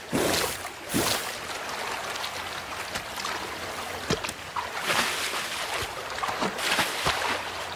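Shallow river running over stones, with scattered splashes as a European bison wades through the water.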